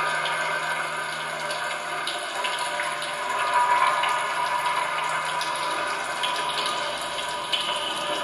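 Live experimental soundscape made from amplified kitchen sounds: a dense, watery rushing noise with scattered small crackles. A low hum runs under it for the first few seconds.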